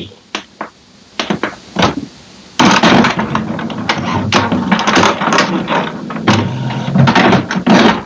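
A few light clicks of printer control-panel buttons being pressed. About two and a half seconds in, the HP Smart Tank 580/5100 inkjet printer's mechanism starts up loudly and keeps running with a steady whir and rapid clicking as it performs a level 3 printhead cleaning.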